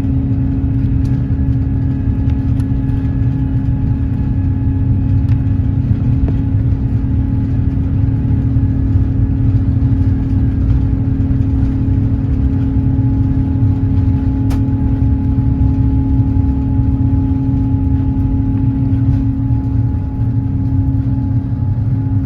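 Steady cabin noise inside an Airbus A350-900: a low rumble with a constant hum from the aircraft's engines and air systems, holding level throughout.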